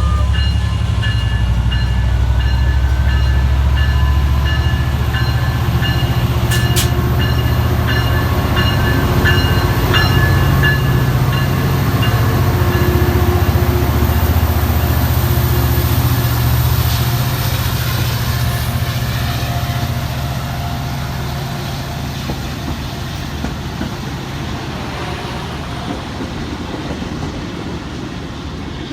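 Diesel-hauled train passing: a heavy, steady low rumble of locomotive and wheels on rail that begins to fade after about 17 seconds as the train moves away.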